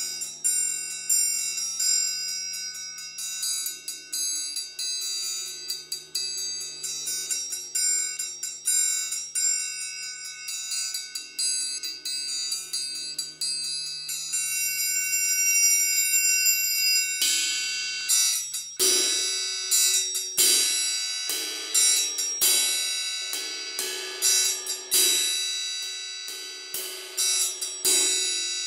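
Several triangles of different sizes struck in quick, overlapping patterns, their high tones ringing together. About two-thirds of the way in, a large suspended cymbal joins with repeated strokes about once a second, its wash under the triangles.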